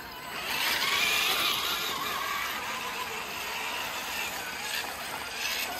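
Scale RC rock crawler's small electric motor and gears whining at a wavering pitch, louder from about half a second in.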